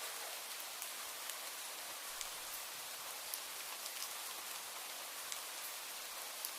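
Steady rain falling: an even hiss with scattered sharper ticks of individual drops hitting a surface.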